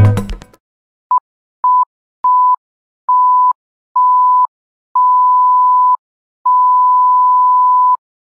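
Electronic beep tone of an animated intro sound effect, one steady mid-pitched note repeated seven times. The beeps grow longer each time, from a short blip to about a second and a half, with silence between them. Music cuts off just before the first beep.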